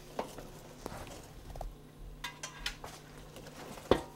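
Scattered light metallic clinks and scuffling of hand tools and overalls as a mechanic settles on his back under a vehicle, with one sharp knock near the end.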